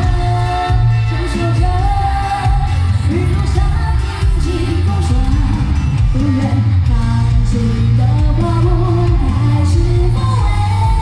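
A woman singing a pop song live into a handheld microphone over loud backing music with a heavy, steady low end.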